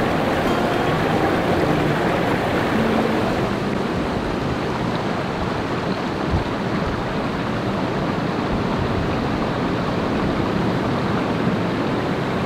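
Small woodland stream running over rocks and a little cascade: a steady, even rush of water.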